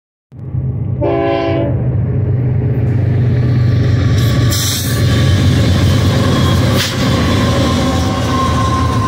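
BNSF diesel freight locomotives, a GE ES44C4 leading a Dash 9, approach with a steady, loud, deep rumble. A short horn blast sounds about a second in.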